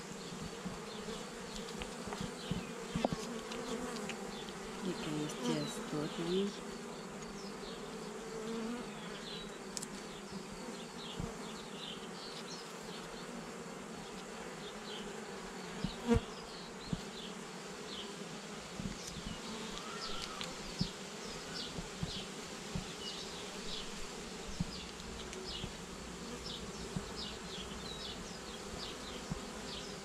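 Honey bees buzzing steadily around an opened hive and a frame of comb, with a few sharp clicks, the loudest about sixteen seconds in.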